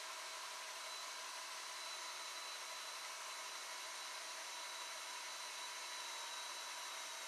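Faint steady hiss with a few thin, steady high tones, unchanging throughout.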